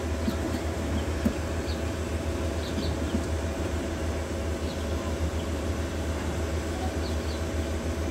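Steady low droning hum of running machinery, with a few faint, short high chirps over it.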